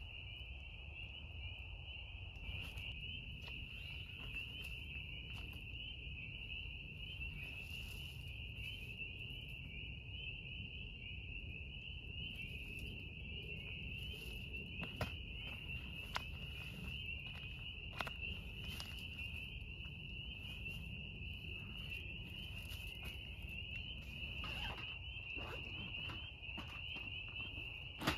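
Steady chorus of crickets trilling, with a few scattered sharp taps.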